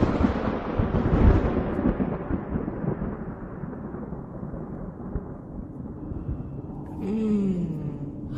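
Thunder rolling away after a loud clap, fading and growing duller over several seconds. Near the end a low steady drone comes in with a short wavering, gliding tone over it.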